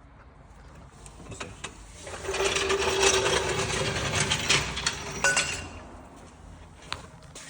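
A power tool runs for about three seconds with a fast, steady rattle, starting about two seconds in. A few sharp metal tool clicks come before and after it.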